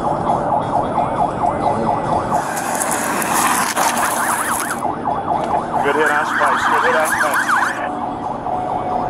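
Police car siren in a fast yelp, its pitch sweeping up and down several times a second, over steady road noise.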